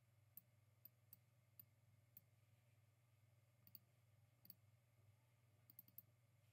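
Faint, sharp computer mouse clicks, about ten spread irregularly with a quick run of several near the end, over a low steady hum.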